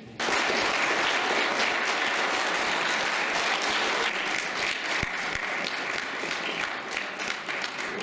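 Audience applauding, starting suddenly and easing off slightly near the end.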